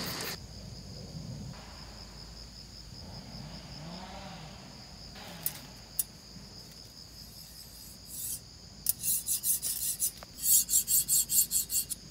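A metal grill-cleaning tool scraped quickly back and forth between the bars of a folding metal camping grill, a rasping of about five strokes a second over the last few seconds, used to clear out residue left from grilling meat.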